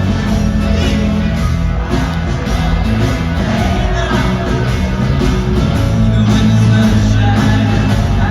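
Live rock band playing a guitar-led song in an arena, with singing over it.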